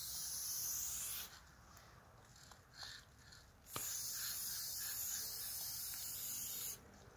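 Aerosol can of red spray paint hissing as paint is sprayed onto a rough wall, in two spurts: one ending about a second in, and a longer one of about three seconds starting about four seconds in. A few faint clicks fall in the gap between.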